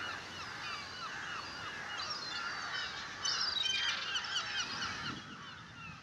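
A flock of birds calling: many short, overlapping calls, several a second, thickest about three to four seconds in and thinning out near the end, over a faint rush of surf.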